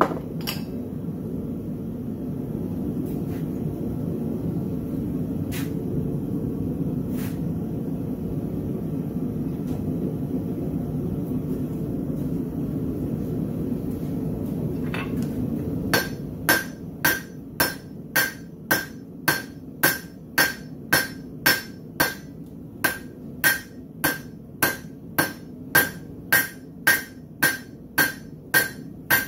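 A steady roar with a few scattered clinks for the first sixteen seconds or so. Then a blacksmith's hammer starts striking red-hot steel bar stock over the anvil's horn, about one and a half blows a second, each blow ringing off the anvil. This is drawing out a taper.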